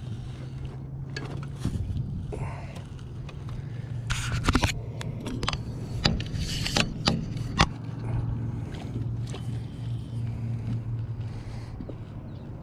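Landing net's metal handle scraping and knocking against an aluminum boat, with several sharp knocks between about four and eight seconds in, over a steady low hum.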